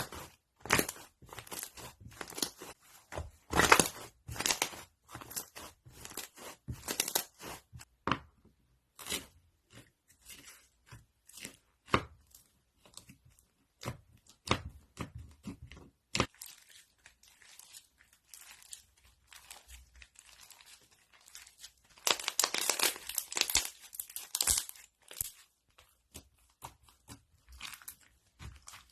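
Crunchy slime being squeezed and pressed, giving irregular runs of crackling and crunching pops with short pauses between, and a dense stretch of crackling near the end.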